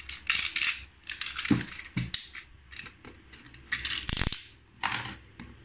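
Cardboard box being handled and opened by hand: a run of short scrapes and clicks on the cardboard and plastic, with a dull knock about four seconds in.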